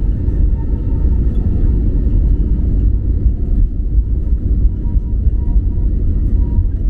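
Airbus A320neo cabin noise during takeoff: the engines at takeoff thrust and the rush of the airframe make a steady, loud low rumble, with faint steady tones above it.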